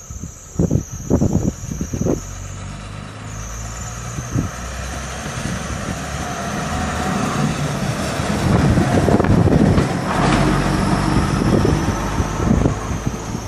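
Diesel railbus running past close by, its engine and wheels on the rails growing louder to a peak about nine to ten seconds in. A few loud thumps come in the first two seconds.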